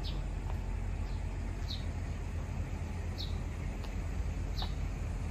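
A bird repeating a short, high, falling chirp about every one and a half seconds, four times, over a steady low rumble.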